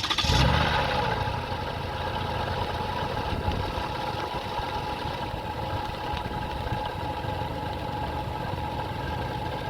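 Car engine just started, surging briefly and then settling into a steady idle. A thin, steady whine rides over the running engine: the engine-bay noise being diagnosed among the pulleys and water pump.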